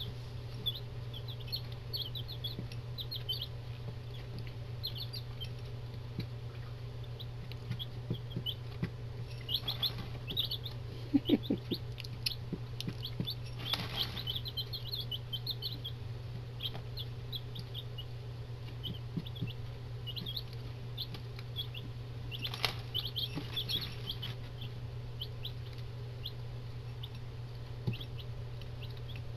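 A brood of young chicks (Buff Orpingtons and Barred Rocks) peeping continuously in short, high chirps, with occasional scuffling as they scratch and kick their feed about, over a steady low hum.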